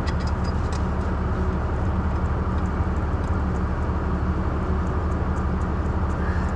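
Steady low machine drone, with a few faint clicks over it.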